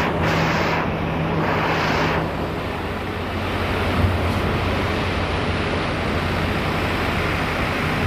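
Engine running steadily under a loud rushing noise, with two louder hissing rushes in the first two seconds and a short knock about four seconds in.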